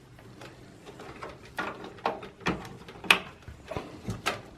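Cable connectors and wiring being handled and plugged onto a desktop PC motherboard inside the case: an irregular run of sharp plastic clicks and taps, the loudest about halfway through.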